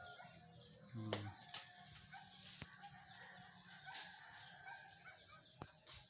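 Faint rooster crowing and chicken clucking over a steady high insect chirr, with a short low call about a second in and a few sharp clicks.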